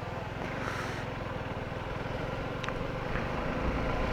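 Motorcycle engine running steadily with a low, even rumble.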